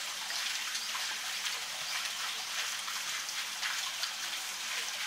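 Steady rush of pool water: a continuous, even hiss with no separate splashes standing out.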